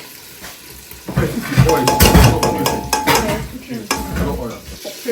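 A spoon stirring and scraping in a cooking pot, with repeated clinks and clatter of metal utensils against the pan, starting about a second in and dying away near the end.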